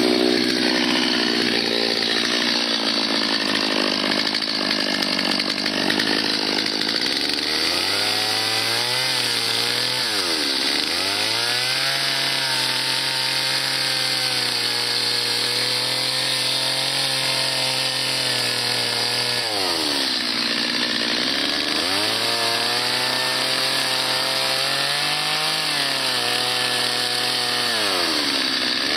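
Two-stroke Stihl chainsaw cutting into a sassafras stump while carving it. The engine runs hard, then its revs drop sharply and climb back three times, about a third of the way in, two-thirds in, and near the end.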